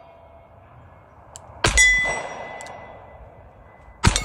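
A 1910 Colt Officers Model .38 Special revolver fires a little under two seconds in, and a steel gong target rings with a clear, high tone that fades over about two seconds. A second shot and clang come at the very end.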